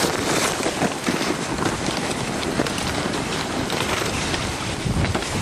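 Steady rushing, scraping hiss of a person sliding fast on their backside down a packed snow slope, mixed with wind rushing over the microphone from the speed.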